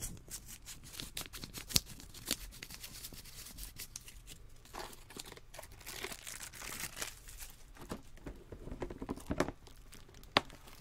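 Crinkling and rustling of plastic-wrapped first-aid packets handled close to the microphone, with crackly ticks and longer swishy rustles, and a few sharp clicks near the end.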